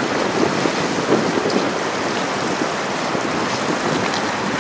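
Wind buffeting the microphone in a steady, gusty rush, with river water washing under it.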